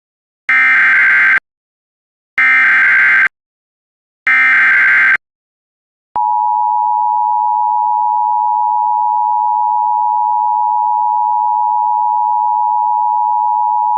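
Emergency Alert System broadcast opening: three short bursts of SAME digital header data, about a second apart, then about six seconds in the steady two-tone attention signal (853 and 960 Hz) starts and holds, marking the start of an emergency alert.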